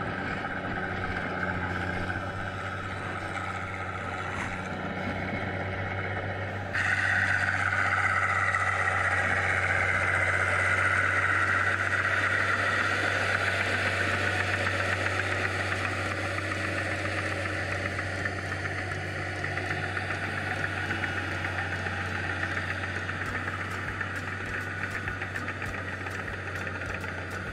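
Crawler tractor's diesel engine running steadily as it tills a flooded paddy field. It gets suddenly louder about seven seconds in, is loudest as the tractor passes close, then slowly fades as it moves away.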